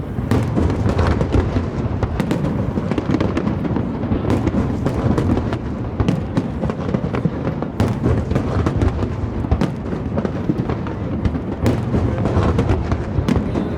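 Aerial fireworks going off continuously: a dense low rumble of shell bursts, with many sharp cracks and pops scattered throughout.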